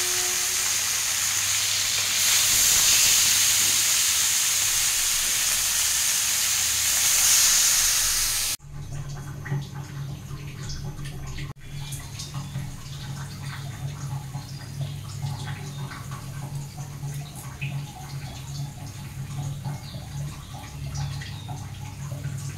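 Small fish sizzling in hot oil in an aluminium kadhai, a steady frying hiss. About eight and a half seconds in the sizzle cuts off suddenly, leaving a quieter low steady hum with faint scattered ticks.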